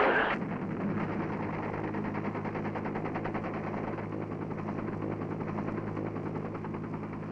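UH-1 Huey helicopter in flight, heard from inside the cabin: a steady engine-and-rotor drone with a fast, even beat.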